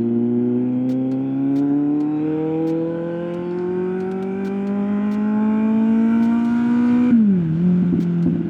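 Kawasaki Z900 inline-four motorcycle engine accelerating, its pitch climbing steadily through one long pull. About seven seconds in the revs drop sharply and settle, as at a gear change or roll-off.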